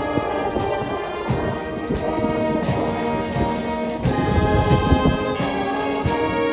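A wind band playing live: brass and saxophones holding sustained chords over a drum kit keeping a steady beat.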